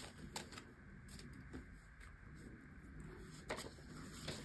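Faint rustles and soft crisp flicks of paper banknotes being handled and pulled from a stack, a few separate brief sounds, the clearest about three and a half seconds in.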